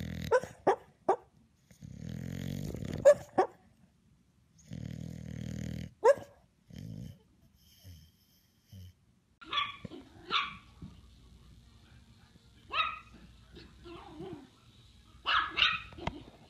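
English bulldog snoring in its sleep: long, harsh snores about every three seconds, with short snorts between them. After a cut about halfway through, a dog barks in short barks, about five or six times.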